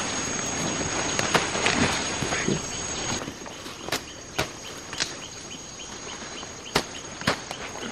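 Rainforest sounds: rustling in dense vegetation for the first few seconds, then about five sharp snaps or cracks spread through the rest. A steady high-pitched insect drone runs underneath.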